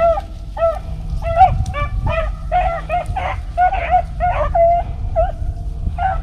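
Pack of beagles baying on a rabbit's track: short, pitched, overlapping barks, two to three a second, from several dogs, with a low wind rumble underneath.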